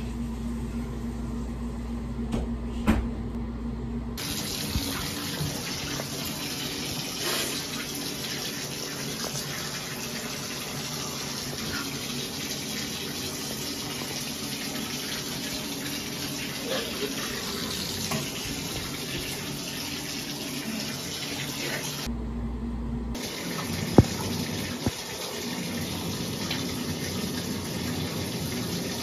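Steady rush of running water, which breaks off for about a second past the twenty-second mark and then resumes. A couple of sharp knocks sound, one early and one near the break.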